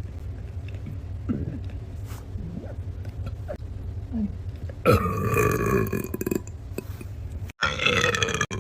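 A person burping loudly twice: a long burp about five seconds in that sinks slightly in pitch, then a shorter one near the end, over a steady low rumble.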